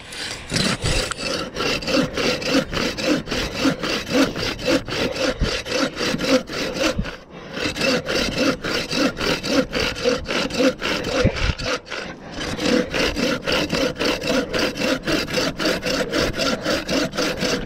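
Curved-blade hand pruning saw cutting through a fallen tree trunk in steady back-and-forth strokes, about three a second, with brief pauses about seven and twelve seconds in.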